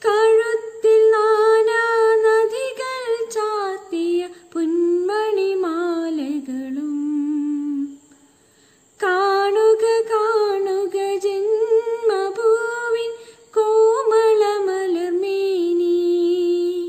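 A woman singing a Malayalam patriotic song unaccompanied, in a wordless, hummed-sounding passage of long held notes. There are two phrases, with a short pause about eight seconds in.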